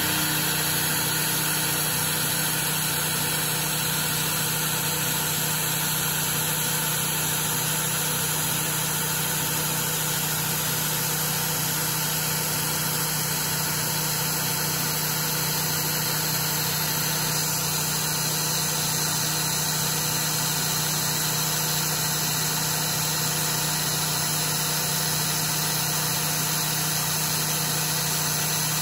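Five-flute solid carbide end mill spinning at 1700 rpm, cutting a square-corner notch in a metal part on a mill under coolant spray. A steady cutting noise with an even hum.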